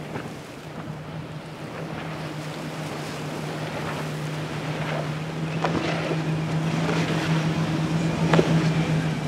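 Outboard engines of a fast-running center-console fishing boat, a steady drone that grows louder as the boat comes closer. In the second half the hull slaps and splashes sharply on the waves several times.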